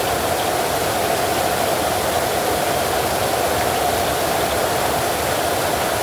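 Heavy rain falling steadily: a dense, even hiss with no thunder.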